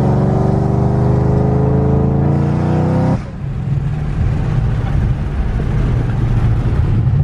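2014 Shelby GT500's supercharged 5.8-litre V8 pulling hard under acceleration, its pitch rising steadily, then cut off abruptly about three seconds in and dropping to a lower, rougher running for the rest.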